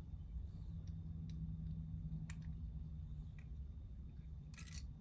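Parts of a diecast toy van, its metal body and plastic base, being handled and fitted together. A few faint clicks come through the first few seconds, then a brief scraping rustle near the end, over a low steady hum.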